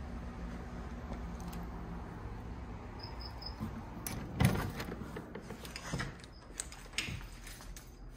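Steady low background noise on a porch. About three seconds in there are three short high chirps. About four and a half seconds in a door is opened with a loud thud, followed by a few knocks and clicks of the door and of footsteps on a hard floor as someone walks indoors.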